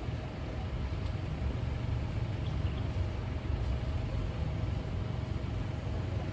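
Vehicle engine idling with the vehicle standing still: a steady low rumble with a faint steady hum above it.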